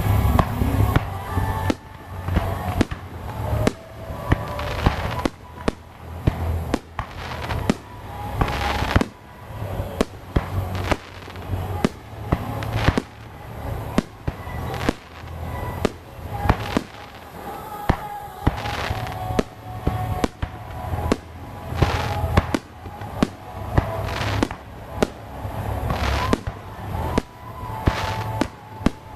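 Fireworks going off in a steady barrage: sharp bangs about once or twice a second, each trailing off into crackle and echo.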